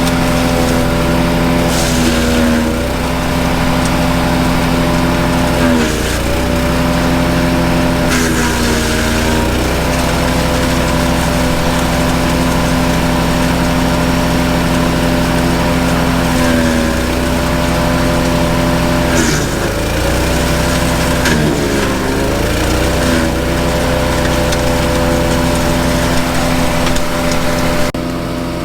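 Honda-engined self-propelled wood chipper running steadily at high speed. Its pitch dips briefly and recovers about six times, with crackling at some of the dips: the engine bogging as branches are fed through and chipped.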